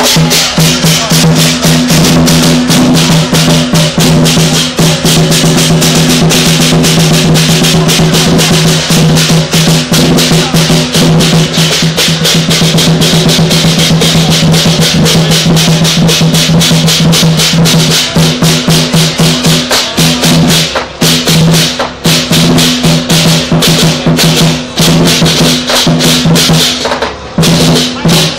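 Chinese lion dance percussion played loud and fast: a large drum beaten in rapid strokes with clashing cymbals over a steady low ringing. In the last third the strikes space out, with short breaks between phrases.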